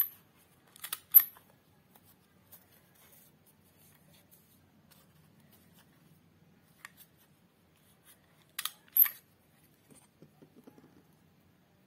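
Handheld paper punch snapping as it punches small shapes out of white paper: sharp clicks in small groups, loudest about a second in and again about nine seconds in, with faint paper rustling near the end.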